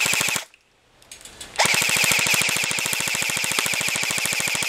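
Tokyo Marui MP5 airsoft electric gun firing on full auto: a short burst that stops about half a second in, then after a second's pause a long burst of nearly four seconds. It is a rapid, even clatter of shots with a steady high whine over it.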